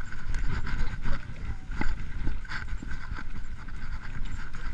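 Mountain bike riding fast over a bumpy, leaf-covered dirt trail: a steady rumble of tyres and wind on the microphone, with frequent short knocks and rattles as the bike jolts, and a steady high whir underneath.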